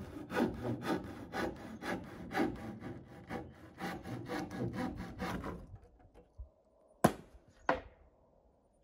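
Hand saw cutting through a wooden roof board in steady back-and-forth strokes, about two to three a second, stopping about five and a half seconds in; two sharp knocks follow near the end.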